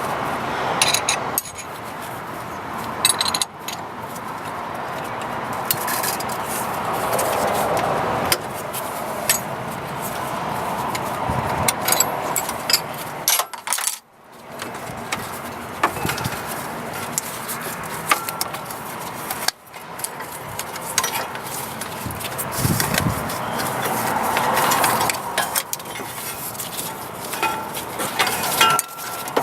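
Metal hand tools clinking and scraping against metal under a car's hood while the serpentine belt tensioner is worked and the belt is taken off, with irregular small clinks throughout.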